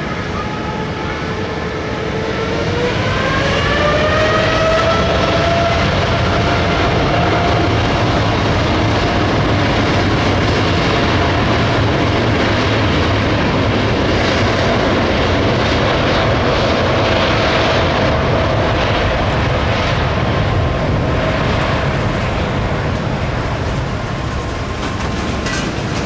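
Boeing 787 airliner's Rolls-Royce Trent 1000 turbofans spooling up to takeoff power. A rising whine comes about two to four seconds in, then a loud, steady jet noise with a high whine through the takeoff roll.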